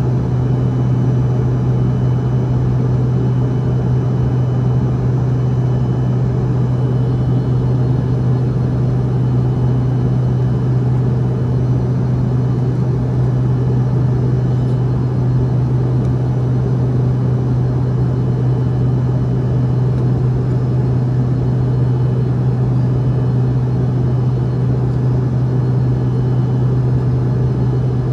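Airliner cabin noise: a steady low drone with no change in pitch or level.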